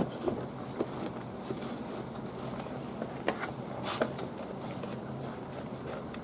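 Light rustles and a few scattered knocks from a golf cart's rubber floor mat being pressed and settled into place by hand, over a steady low hum.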